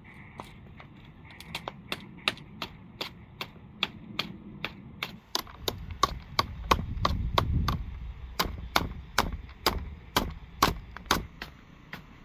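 A machete blade chopping into split, flattened bamboo, a steady run of sharp wooden chops about two to three a second, as the culm is split into slats for a floor board. A low rumble sits under the chops about six to eight seconds in.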